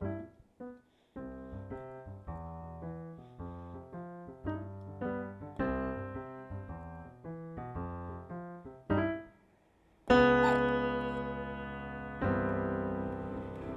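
Pianoteq software piano played live from a MIDI keyboard: a slow, halting melody of single notes and chords. There is a brief silence, then a loud chord about ten seconds in, and another chord a couple of seconds later.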